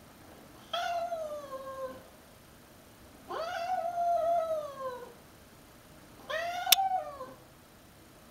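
Cat yowling in a territorial standoff with a stray: three long, drawn-out yowls, each bending up then sliding down in pitch, with short quiet gaps between. A sharp click comes in the middle of the third yowl.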